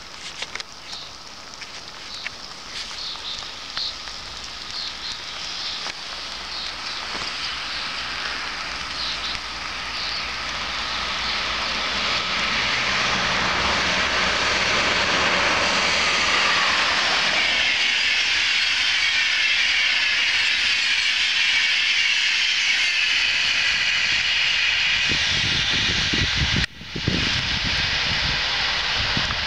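InterCity train hauled by DB class 120 and class 101 electric locomotives passing at about 200 km/h. A rush of wheels on rail and air grows steadily louder as it approaches, then becomes a loud, steady hissing roar that drops in pitch about halfway through as the train goes by. Near the end the sound cuts out for an instant, then low gusty rumbling follows as the coaches pass.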